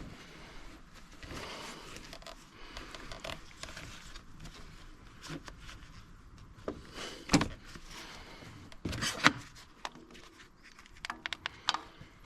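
Hands and tools working on a car: scraping and rustling, then a few sharp knocks, the loudest two about seven and nine seconds in, and a run of small clicks near the end.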